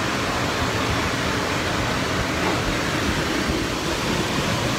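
Full-body dryer booth's blowers running, a steady rush of air.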